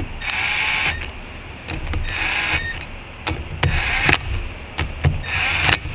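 Cordless power tool running the four housing bolts into a turbocharger's center section: four short runs of motor whine, each under a second, with light clicks of handling between them.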